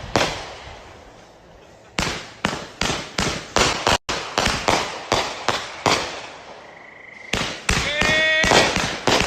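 Consumer fireworks going off: a quick run of sharp bangs about three a second, a brief lull with a short whistle, then another volley of cracks.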